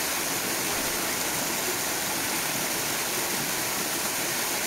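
Steady rushing of water in a swimming pool, an even hiss without breaks.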